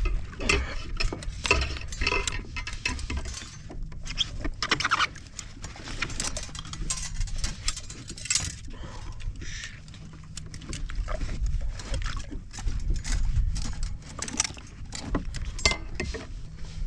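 A halibut being landed in a landing net against a plastic fishing kayak: many short, irregular knocks, rattles and scrapes as the fish thrashes and the net frame and gear clatter on the hull, over a low rumble.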